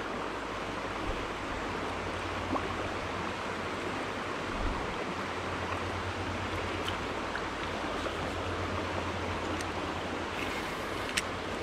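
Shallow, rocky trout stream running steadily over stones, an even rush of water.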